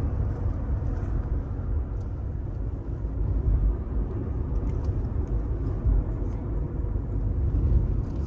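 Car in motion, heard from inside: a steady low road-and-engine rumble with a few faint ticks.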